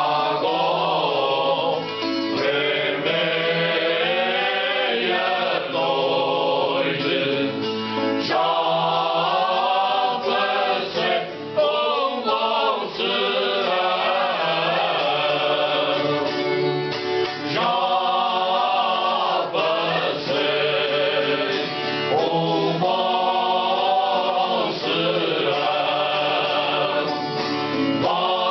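Cante alentejano: a group of men singing together in slow phrases, led by one voice and accompanied by a strummed viola campaniça.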